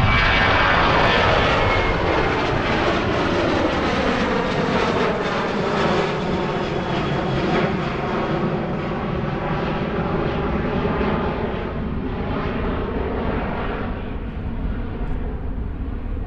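Airliner's jet engines passing by the runway, with a mix of rushing noise and whining tones. The whine falls in pitch over the first few seconds as the aircraft goes past, then holds steady as the sound slowly fades.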